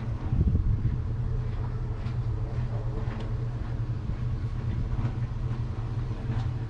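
A steady low drone of a running engine, with a brief low rumble about half a second in.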